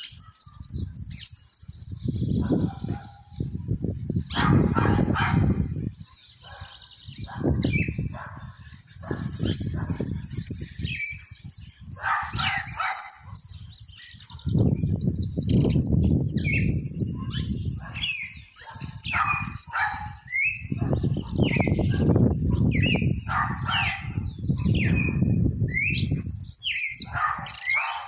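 A caged mixto amarillo (yellow finch) sings a long, rambling song of high twittering trills and chirps, in phrases with short breaks. Several-second bouts of low rumbling noise come and go underneath.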